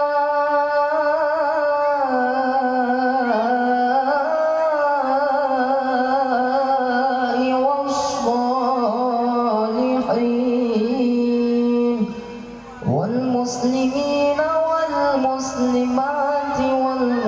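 Singing for a traditional Acehnese seated dance: one voice sings a slow, ornamented melody in long held notes that waver in pitch, breaking off briefly about twelve seconds in before carrying on.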